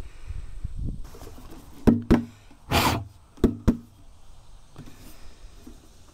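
Handling noise from a small plastic diesel tank being wiped down and lifted off a diamond-plate tailgate: four sharp knocks, a pair about two seconds in and another pair about a second and a half later, with a short rushing scrape between them.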